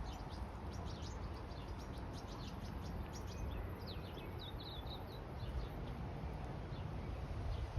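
Small birds chirping, many short high notes in quick scattered runs, over a steady low rumble.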